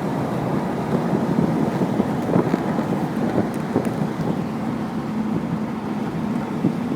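Ferrari 348 TS's V8 engine running steadily at cruise in fifth gear, under a steady rumble of wind and road noise.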